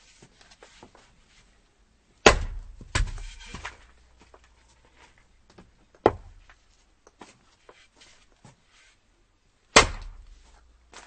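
Axe chopping firewood: four sharp strikes into the wood, the loudest about two seconds in and near the end, with light knocks and clatter of wood between.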